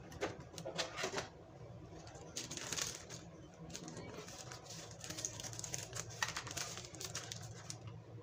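Plastic breading-mix packet being handled: irregular crinkling, rustling and light clicks, over a low steady hum.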